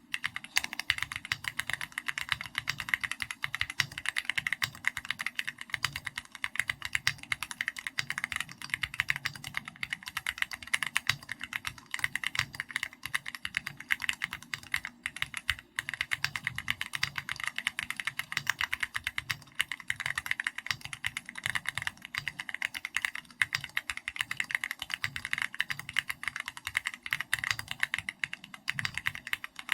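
Continuous typing on a custom mechanical keyboard: SPM AL66B housing with Keychron Red linear switches and XVX comic-style keycaps, a dense steady stream of keystrokes with only a couple of brief pauses.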